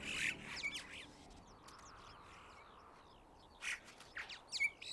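Red-billed choughs calling with short, harsh calls: a few near the start, a quiet stretch, then a quick run of calls near the end.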